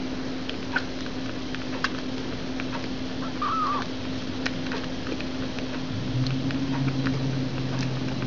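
Young kitten suckling at a feeding bottle: small scattered wet clicks over a steady hum and hiss, with one short warbling chirp about three and a half seconds in.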